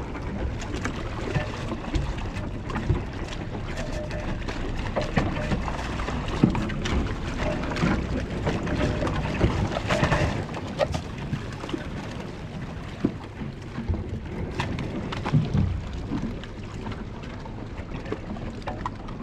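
A sailing yacht's bow moving through floating brash ice: water rushes steadily along the hull, broken by irregular knocks as pieces of ice strike it.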